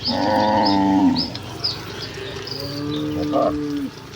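Cattle mooing: two long moos, a loud one at the start lasting about a second and another from about two and a half seconds in lasting over a second, with repeated short high chirps behind them.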